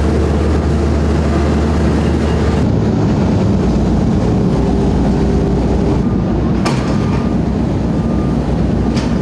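Diesel engine of a road roller running steadily at close range, a heavy low drone that changes at a cut about two and a half seconds in.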